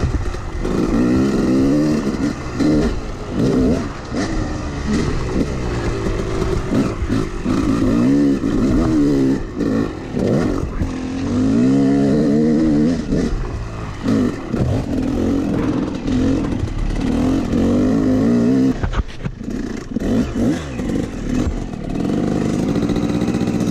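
Yamaha YZ250X two-stroke dirt bike engine revving up and falling off over and over as it is ridden along a trail, with a short lull about three quarters of the way through.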